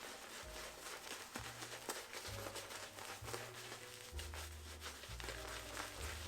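Synthetic-knot shaving brush scrubbing wet soap lather on the face, a fine wet crackle of many small clicks as the lather starts to pop. Faint background music with a low bass line plays underneath.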